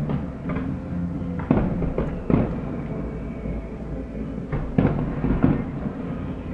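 Fireworks exploding: about eight sharp bangs in quick clusters, with steady low musical tones underneath.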